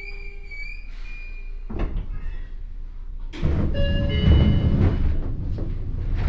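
Sliding doors of a Seibu 9000 series commuter train closing at the platform: a steady tone ends about a second in, a knock comes near two seconds, then a loud rush of noise with a short chime from about halfway as the doors slide shut.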